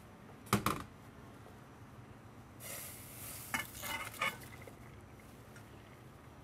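Metal saucepan knocking twice against a stainless-steel sink, then hot pasta water poured out through a colander into the sink: a rush of water lasting about a second and a half, with a few metal clinks.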